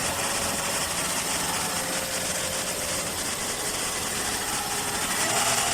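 Toyota car engine idling steadily from cold, after hard starting, which the mechanic later traces to a very dirty fuel filter.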